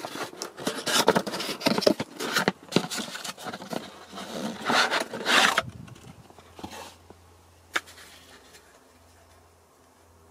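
Cardboard parts box being opened and the part pulled out by gloved hands: a run of rustling, scraping and clicking that stops suddenly about five and a half seconds in. After that come a couple of light plastic clicks as the sunglass holder is handled.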